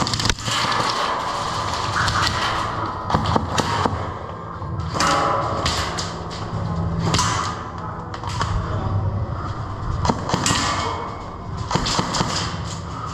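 Scattered sharp pops and knocks of close-quarters airsoft play, from airsoft guns firing and BBs striking hard surfaces, over a steady low hum.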